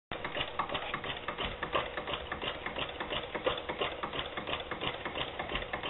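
A small machine ticking rapidly and evenly, several clicks a second, over a steady hum.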